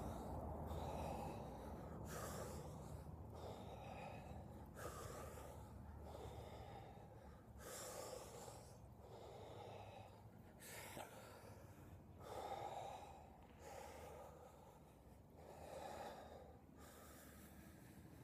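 A person's faint, forceful breathing: a series of deep breaths in and out, about one every one to two seconds, during a breathwork exercise.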